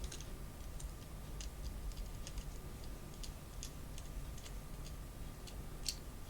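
Faint, irregular light clicks and ticks of a small screwdriver and tiny parts while a screw is driven into the drawbar of an N gauge model locomotive's tender.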